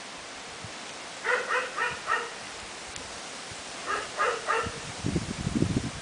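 Steady hiss of typhoon wind and rain. Over it, an animal calls in two short runs of three or four calls. Near the end a gust buffets the microphone with a low rumble.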